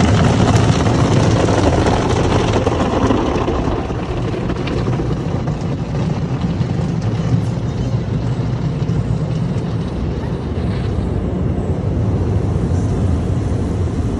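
Automatic car wash heard from inside the car: water spray and wash equipment working over the body and windshield, a steady, loud, deep wash of noise, a little louder in the first few seconds.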